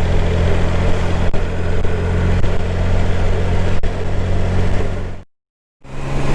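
Motorcycle engine running at a steady low road speed, with wind rush over a helmet-mounted mic. Two light clicks, and near the end the sound cuts out completely for about half a second.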